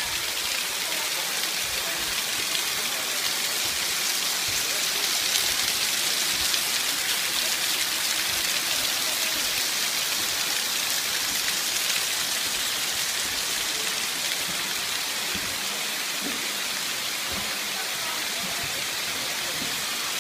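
Water falling in drops and thin streams from a mossy rock face of a waterfall and splashing onto wet rock: a steady, even hiss like heavy rain.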